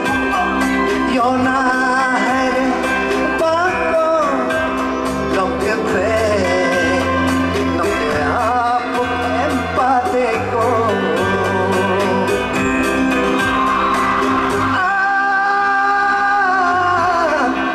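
A man singing into a microphone over amplified music with a steady beat. Near the end the beat drops out and he holds one long note that slides down.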